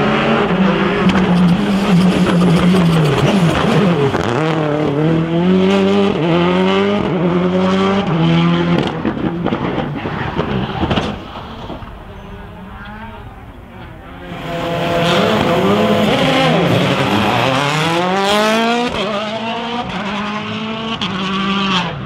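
Rally car engines at high revs, their pitch climbing and dropping again and again with throttle and gear changes as the cars pass. The sound fades about eleven seconds in, then a second car comes in loud about three seconds later.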